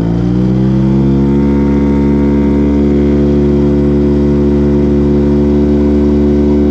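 Outboard motor on an inflatable boat running under way, its pitch rising a little in the first second as it picks up speed, then holding steady.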